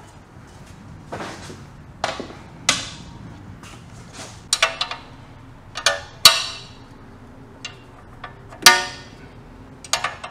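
Metal tools and engine parts clinking and clanking in a series of sharp strikes, some ringing briefly, the loudest about six and nine seconds in.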